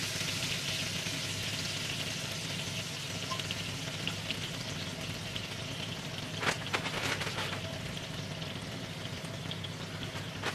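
Haddock fillets frying in melted butter in a non-stick pan, a steady sizzle, with a few brief clicks about six and a half seconds in.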